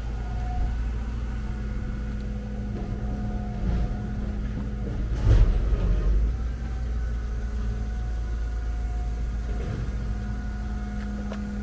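Qooder 400 four-wheel scooter's engine idling steadily, with a brief louder rumble about five seconds in.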